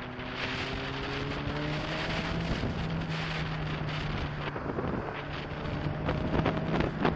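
Motorcycle at road speed: heavy wind rushing over the rider's camera microphone, with the engine note rising over the first two seconds and then holding steady. Louder wind gusts come near the end.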